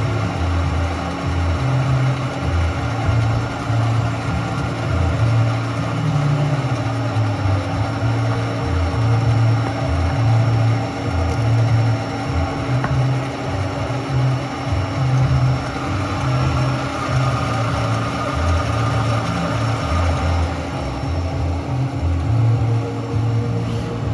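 Takamaz X-20 CNC lathe running, a steady machine hum with a constant tone and low tones that shift up and down in steps.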